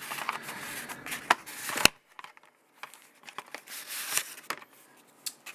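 Cardboard SSD retail box and its paper inserts being handled: rustling, with one sharp click about two seconds in and fainter scattered taps after it.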